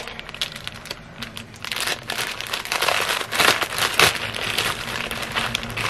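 Packaging crinkling and rustling as a newly bought tank top is handled, in irregular crackles that get loudest about three to four seconds in.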